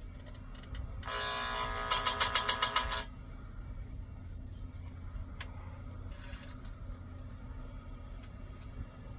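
Electric chain grinder's wheel screeching against a chainsaw cutter tooth for about two seconds, pulsing quickly as it grinds, then stopping abruptly; a low motor hum runs underneath.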